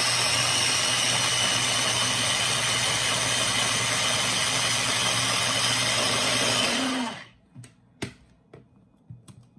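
Small Ninja blender running at full speed, chopping frozen blueberries into purée, a loud steady whir that winds down and stops about seven seconds in. A sharp click follows about a second later as the container is handled.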